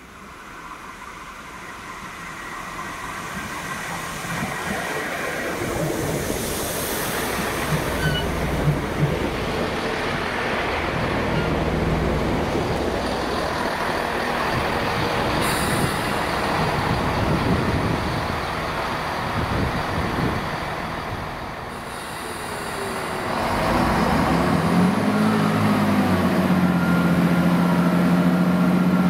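Class 165 Networker Turbo diesel multiple unit running in along the platform, wheels on rail and underfloor diesel engines, braking to a stand with short hisses. From about 24 s in it stands with its engines idling in a steady hum.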